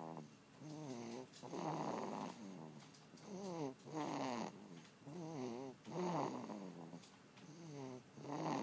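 Two-month-old baby snoring, a wavering, rattly snore on both the in- and the out-breath, coming evenly about once every two seconds.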